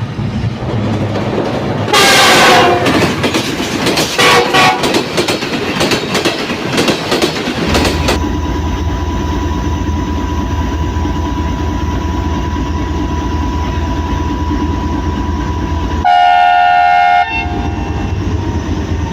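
A train passing close with loud clattering for the first several seconds, then the steady low rumble of a locomotive's diesel engine. Near the end, one steady chord-like blast of the locomotive's air horn lasts just over a second and is the loudest sound in the stretch.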